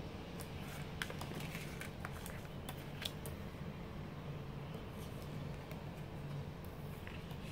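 Glossy photo cards and fingernails clicking and tapping on a tabletop as puzzle-card pieces are picked up and laid into place. The clicks come in a quick scatter during the first three seconds and a few more later, over a low steady room hum.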